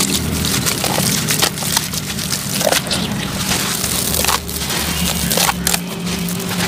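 Wet sand-cement clumps crumbled by hand into shallow water: a dense, irregular gritty crunching and crackling of many small clicks as the chunks break apart.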